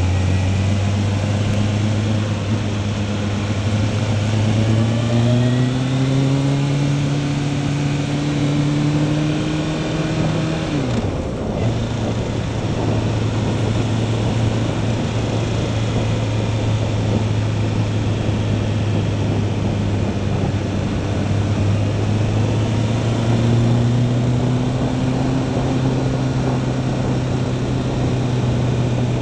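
Motorcycle engine heard from the rider's own bike, accelerating with its pitch climbing for several seconds, then falling sharply about eleven seconds in at an upshift and running steadily before climbing again near the end. Steady wind rush over the microphone throughout.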